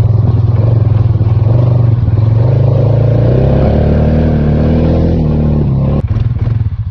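Polaris off-road vehicle's engine running under way. Its pitch rises about three seconds in as it picks up speed, then drops back near the end with a single sharp knock.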